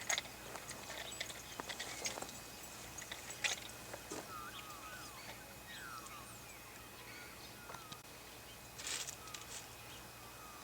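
Quiet outdoor ambience with birds chirping faintly in short rising and falling notes, mostly in the middle. There are scattered light clicks and a brief rustle near the end.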